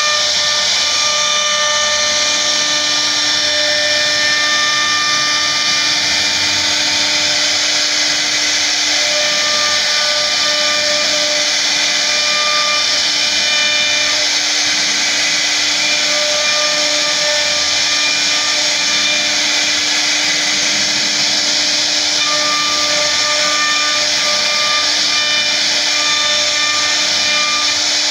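CNC router spindle running at speed, its bit cutting a relief pattern into a wooden door panel: a steady whine of several pitches over the hiss of the cut, at an even level throughout.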